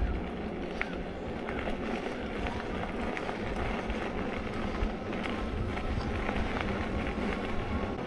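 Bicycle riding along an unpaved rail trail: steady tyre and wind noise with a low rumble and a few light ticks.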